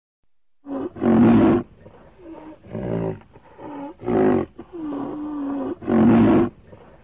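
A run of loud, pitched animal calls, put to the sound track as a rhinoceros's call. They start about a second in, after silence, and come one after another with a wavering tone. The strongest calls fall about every two and a half to three seconds, and one long held call comes shortly before the end.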